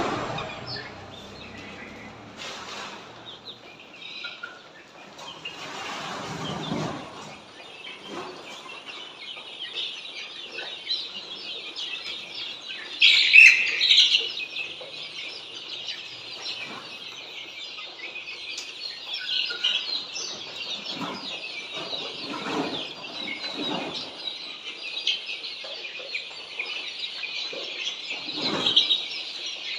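A large flock of Australorp chicks peeping together in a dense, continuous high chorus that swells about nine seconds in, with a loud burst of calls around thirteen seconds and scattered lower clucks throughout.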